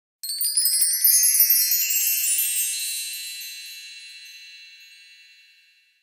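Shimmering chime sound effect used as an intro sting: a cascade of high, bell-like tinkles that sweeps upward in pitch over the first few seconds, then slowly rings away to nothing.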